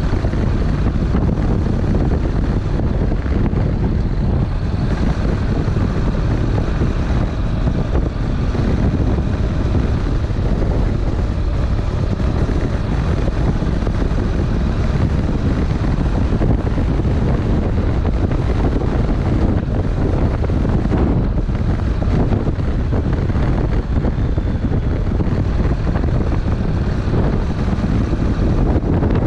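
Honda NC700X's 670 cc parallel-twin engine running steadily under way, mixed with wind rushing over an unshielded action-camera microphone.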